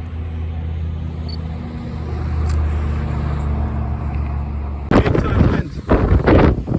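A car's engine hums steadily at idle. About five seconds in, loud, gusting squall-line wind suddenly buffets the microphone in irregular bursts.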